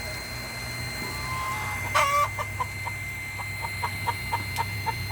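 Chickens clucking: one louder call about two seconds in, then a run of short, evenly spaced clucks, about four a second.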